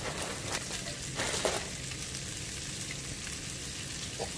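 Shredded cabbage and carrot coleslaw sizzling in hot duck fat in a skillet: a steady frying crackle, with a few louder pops in the first second and a half.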